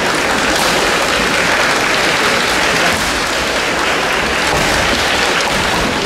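Spectators clapping steadily in a large gymnasium, an even wash of applause.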